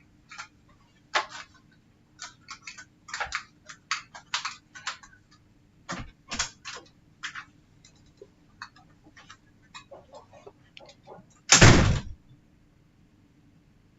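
Irregular small clicks and taps of laptop parts being handled and fitted during reassembly around the touchpad. Near the end comes one louder bump lasting about half a second, after which the handling stops.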